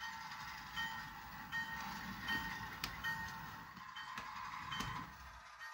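Model train locomotive switching cars at slow speed: a low engine rumble with steady tones, and a bell-like ring repeating a little less than once a second.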